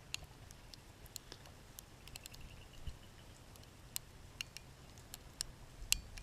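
Sparse, irregular faint ticks of sleet and snow pellets striking nearby surfaces during a blizzard, over a low steady rumble.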